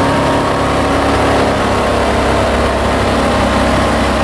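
Boat engine running steadily under way, heard from inside the enclosed cabin of an aluminium boat.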